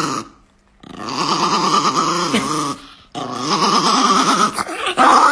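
A chihuahua growling with its mouth open, in stretches of about two seconds with short breaks between them. The growl's pitch wavers up and down so that it sounds almost like the dog is talking.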